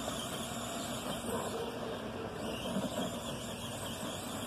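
Arrma Granite Voltage electric RC monster truck driving across grass, its brushed electric motor whining under a steady hiss.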